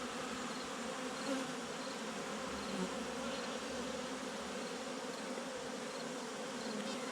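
Many honey bees buzzing steadily as they swarm over open frames of honey, robbing them out.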